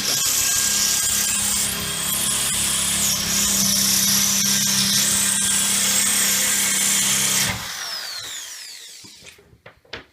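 Handheld power tool running steadily under load while cutting a hole for the chimney pipe. It is switched off about seven and a half seconds in, and a falling whine follows as it coasts to a stop.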